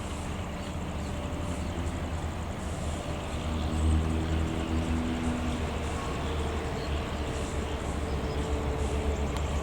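Diesel locomotive engine of a departing KTM train running under load: a deep, steady rumble whose pitch shifts as the power changes, loudest about four seconds in.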